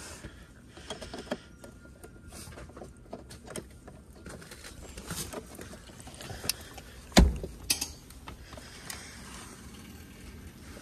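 Clicks and rattles from handling the heat pump's outdoor electrical disconnect box as the pull-out block is pushed back in and the metal cover is shut. A sharp knock about seven seconds in is the loudest sound, with a smaller one just after.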